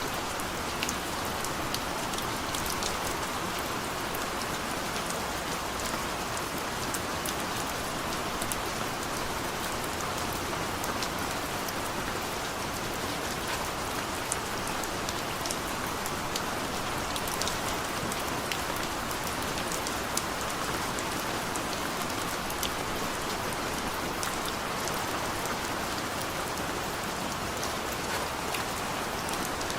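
Heavy rain falling steadily, an even hiss, with frequent sharp ticks of individual drops striking close by.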